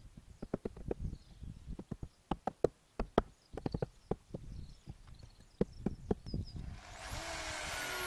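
A quick, irregular run of sharp wooden knocks as a long bar is worked down between roof timbers. About seven seconds in, an electric drill starts and runs steadily with a high whine.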